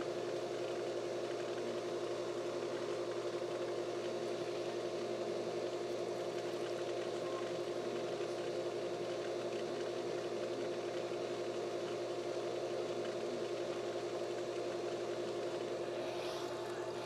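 A machine running with a steady, unchanging hum.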